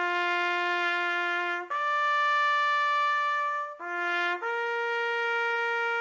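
A solo trumpet playing a slow, bugle-call-style tune of long held notes: a low note, a higher one, the low one again briefly, then a middle note held longest.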